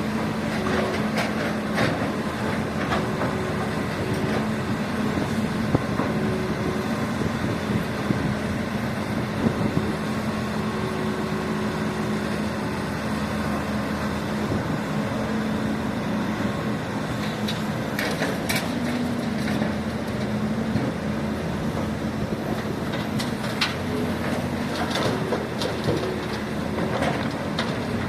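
Hydraulic pump of an RC excavator running with a steady hum that shifts slightly in pitch as the load changes, with scattered small clicks and knocks.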